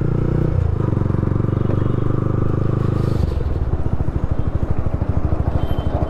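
Sport motorcycle with a modified silencer running steadily under light throttle. About three seconds in the throttle closes and the engine drops to a lower, evenly pulsing idle.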